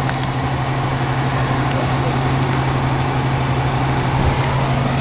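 Motor vehicle engine idling, a steady low hum.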